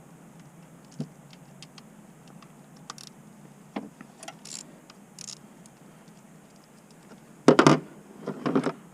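Small metal clicks and clinks of a wrench or ratchet and loose nuts as the oil filter cover nuts come off a Honda Rancher ATV, with a louder clatter twice near the end.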